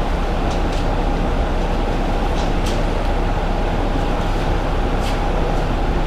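Steady mechanical drone with a low hum and a constant higher tone, with a few brief hissing ticks on top.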